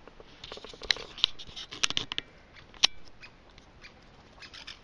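A scatter of sharp, irregular clicks and ticks, the loudest bunched about one to two seconds in and another single loud click just before the three-second mark, with a few fainter ones near the end.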